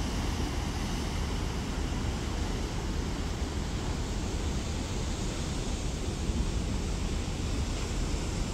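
Steady wind rumble on the microphone over an even rushing hiss of sea, with no distinct event.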